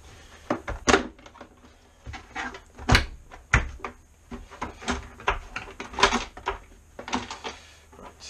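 Sharp plastic clicks and knocks as the shell of a Miele C3 vacuum cleaner is worked loose and pulled apart from its base. About a dozen separate clicks come at uneven intervals, the loudest about a second in and about three seconds in.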